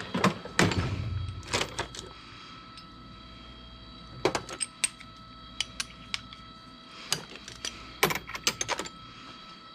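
Metal sockets and hand tools clinking and clicking as they are handled, in scattered sharp taps at irregular intervals, with a faint steady hum underneath.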